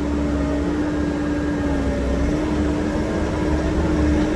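A vehicle engine running steadily: an even hum with a low rumble underneath.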